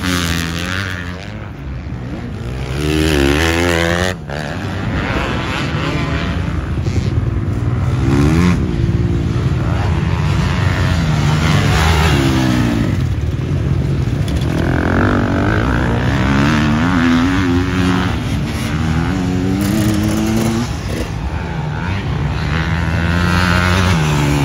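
Motocross bike engines revving up and dropping back over and over as the bikes ride the dirt track, the pitch rising and falling every few seconds. The sound changes abruptly about four seconds in.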